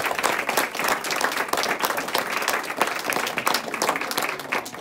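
A small crowd applauding, many overlapping hand claps that thin out near the end.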